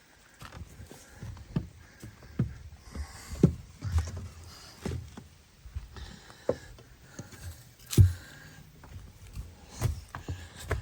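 Footsteps of hikers walking on a woodland trail, about two steps a second, with a few heavier steps standing out.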